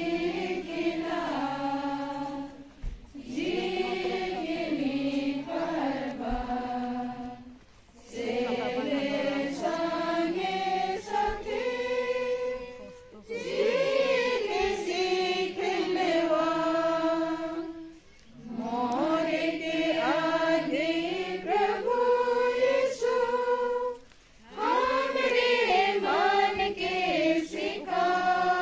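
A group of mourners singing a slow hymn together, in phrases of about five seconds with short pauses for breath between them.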